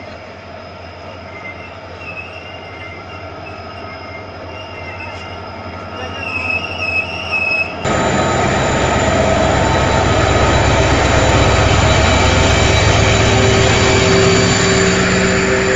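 Passenger train running on the rails, heard from on board: wheels squealing in wavering high tones over the running noise, then about halfway through a sudden jump to a much louder, steady rumble and rush.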